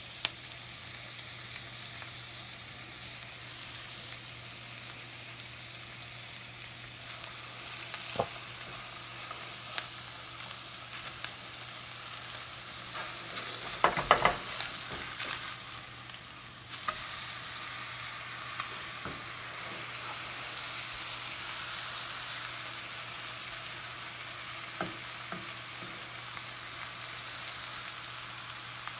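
Tilapia fillets sizzling as they pan-fry in butter in a skillet. About halfway through, a slotted spatula knocks and scrapes against the pan a few times, and the sizzle gets louder afterwards.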